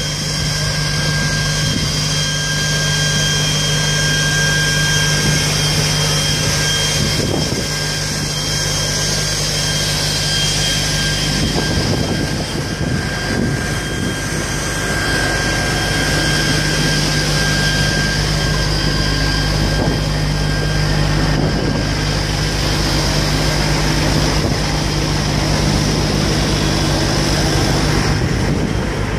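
Fire engine's engine running steadily to drive its pump, a continuous drone with a low hum and a thin, steady high whine.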